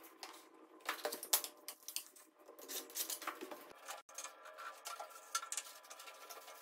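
Laminate planks being set down and clicked together on foam underlay: irregular light taps, clicks and short scrapes.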